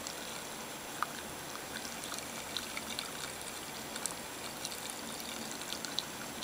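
Carbonated New Coke fizzing in a freshly opened can: a steady hiss of carbonation with many small, scattered crackles of bursting bubbles.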